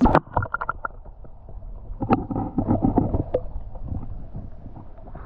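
Water sloshing and splashing close to the microphone, with a quick run of sharp clicks at the start and scattered knocks through it.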